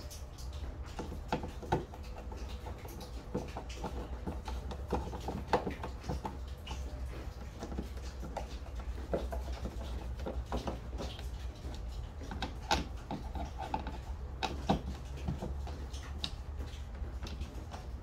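Hand screwdriver driving screws into a boat deck: irregular small clicks and scrapes as the screw is turned, over a low steady hum.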